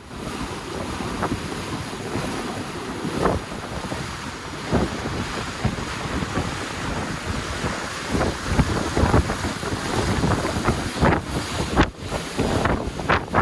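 Wind buffeting the microphone over water rushing and splashing against the hulls of an Excess 11 sailing catamaran under way. The gusts come harder and more often in the second half.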